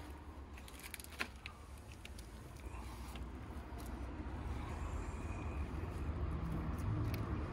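Steady low outdoor rumble that slowly grows louder, with a few faint clicks and rustles in the first two seconds.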